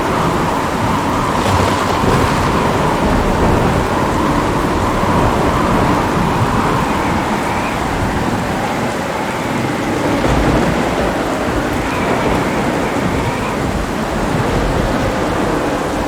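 Steady rain with thunder rumbling low and unevenly underneath it; no sharp crack.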